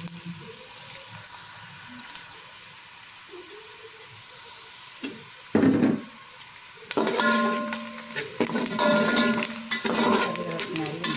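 Sliced onions sizzling steadily in hot oil in a metal pot as they fry toward light golden. About five and a half seconds in there is a loud knock. From about seven seconds a spoon stirs them, clattering and scraping against the pot.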